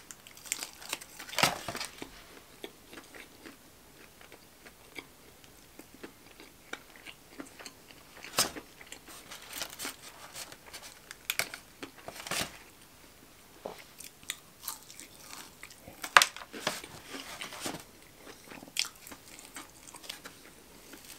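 Close-miked eating: biting and chewing crispy fried chicken fingers, with irregular crunches and wet mouth clicks, a few much louder than the rest.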